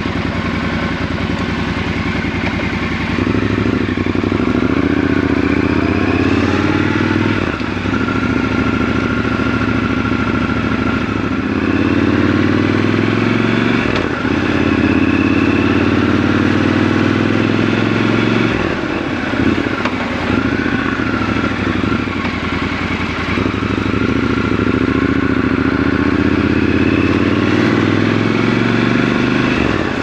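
Triumph Scrambler 1200 XC's 1200 cc parallel-twin engine heard from the rider's seat. It pulls away from a low run about three seconds in, then climbs and drops in pitch as it accelerates, changes gear and eases off, with brief dips between pulls.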